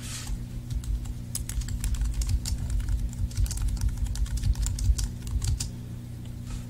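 Typing on a computer keyboard: a quick, irregular run of keystrokes that starts about a second in and stops shortly before the end, over a faint steady hum.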